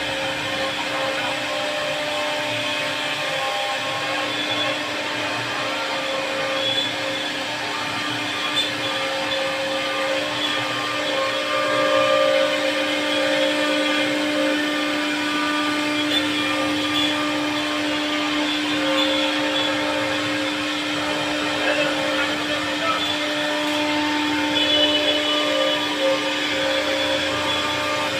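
CNC wood router's spindle motor running steadily with a whine while carving wood.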